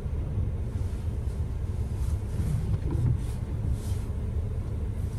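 Steady low rumble of idling engines heard from inside a car's cabin, with a faint hiss above it.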